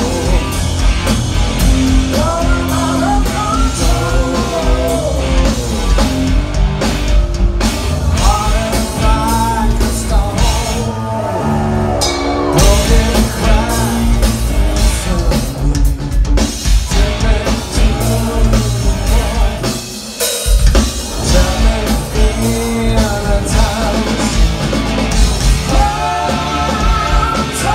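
Live rock band playing loud: electric guitar, bass guitar and drum kit under a sung lead vocal. The band drops out briefly about twenty seconds in, then comes back in at full level.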